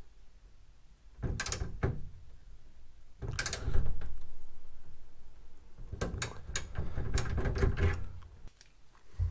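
Hand ratchet wrench clicking as it tightens the outside door handle's mounting bolt into a steel reinforcement plate, in three spells of strokes, the longest near the end.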